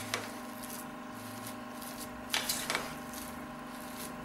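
Plastic spatula mashing cooked rice and horsegram in a pressure-cooker pot: soft squishing with a few short scrapes against the pot, the sharpest about two and a half seconds in, over a steady background hum.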